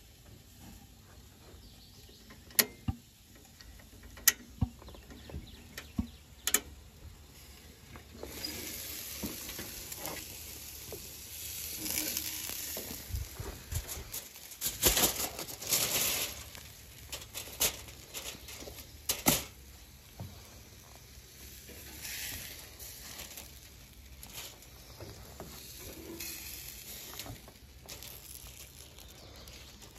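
Sharp knocks and clanks of an Expert Grill gas grill's lid and a meat fork, then after a few seconds a rib-eye steak sizzling as it is lifted off the grill and set down on aluminium foil, with further clanks from the fork.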